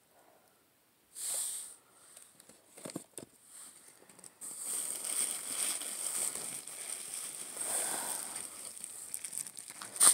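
Plastic packaging and bubble wrap crinkling and rustling as items are moved about in a cardboard box, with a few light knocks. The rustling is brief at first and runs on continuously from about halfway in.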